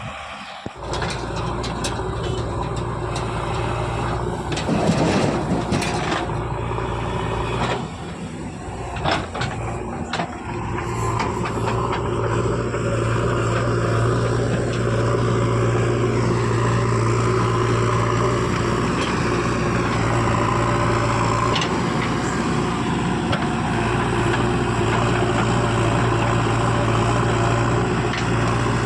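Heavy diesel machinery engine running under load, with several sharp knocks and clatter in the first ten seconds. From about ten seconds in the engine runs louder and steadier.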